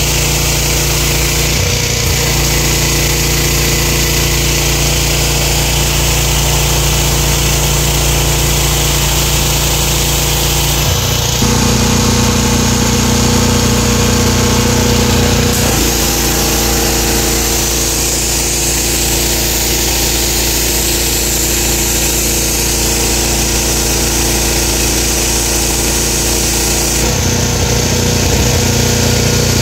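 The 459 cc SUA 460 petrol engine of an Aipower APW 4400 high-pressure washer running steadily, its note shifting several times, with a steady hiss.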